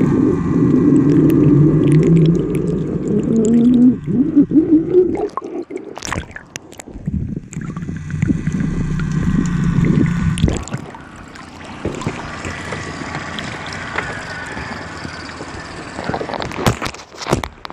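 Underwater sound picked up by a phone's microphone below the surface: a muffled low drone and water gurgling, the drone's pitch rising around four seconds in. After about ten seconds it thins to a quieter hiss, with a few sharp knocks near the end as the phone is handled out of the water.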